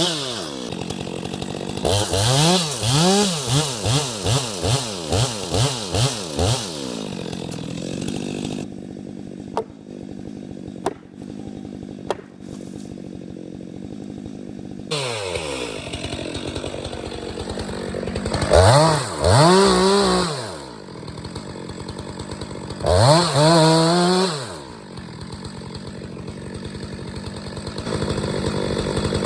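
Chainsaw engine idling and being revved: a quick run of about ten short throttle blips, a quieter spell with a few sharp knocks, then two longer, louder revs up to high speed with idling between.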